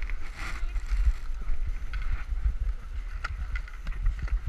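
Wind rumbling and buffeting on the microphone of a helmet-mounted camera, with a few small sharp knocks and faint voices of people around.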